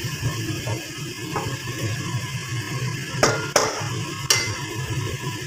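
Wooden spatula stirring and tossing shredded cabbage and carrots in a granite-coated wok over a steady frying sizzle, with a few sharp knocks of the spatula against the pan in the second half.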